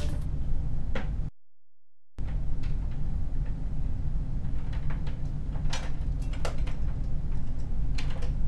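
Steady low room hum with a few scattered sharp clicks and taps, broken by a brief dropout about a second in.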